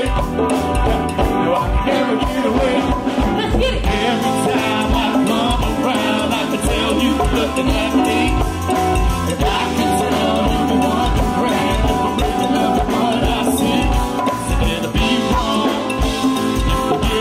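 Band playing live music with a steady, percussion-driven beat.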